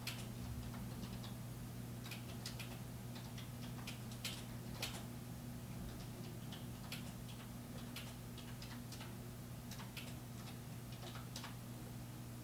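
Scattered light clicks and taps at an irregular pace, a few louder ones around the middle, over a steady low electrical hum.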